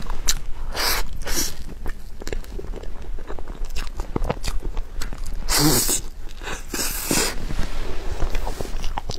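Close-miked eating and food-handling sounds: a stream of small clicks and crackles, with four short rustling bursts.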